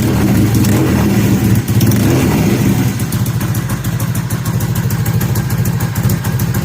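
Kawasaki KZ750 parallel-twin engine ticking over through an aftermarket Delkevic exhaust just after starting, a steady low pulsing idle.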